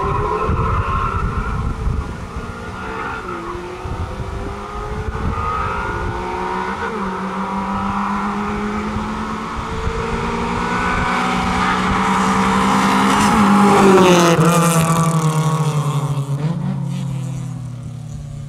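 Two Nissan B13 SE-Rs with SR20DE four-cylinder engines racing a quarter mile: the engines rise in pitch through each gear and drop back at each upshift. They grow louder as the cars approach, are loudest as they pass about fourteen seconds in, then fall in pitch and fade.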